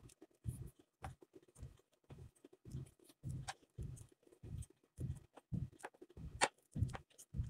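Hand knitting with wooden needles: soft low knocks and faint clicks in a steady rhythm of about two a second as the stitches are worked.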